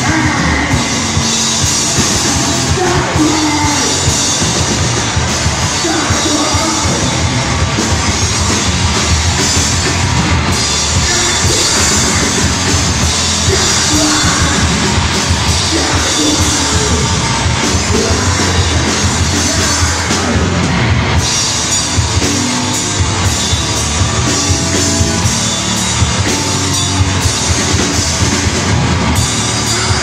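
Blackened hardcore band playing live and loud: distorted guitars and pounding drums under shouted vocals.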